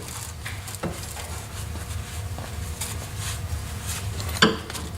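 Light scattered rustling and small clicks of wiping brake-cleaner-wet brake parts down by hand, with one sharp click near the end.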